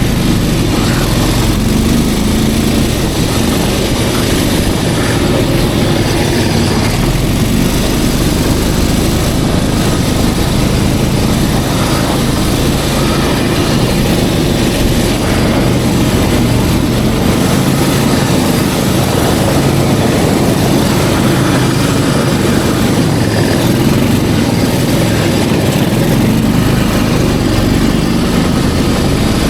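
Snowmobile engine running steadily.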